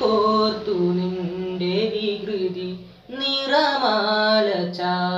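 A teenage boy singing solo without accompaniment, holding long notes with small bends and wavers in the melody, pausing briefly for breath about three seconds in.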